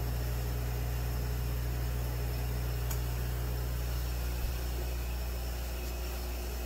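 Steady low hum of an aquarium air pump with the constant hiss of a bubbling air stone in a turtle tank. There is a faint click about three seconds in and a soft bump a little later.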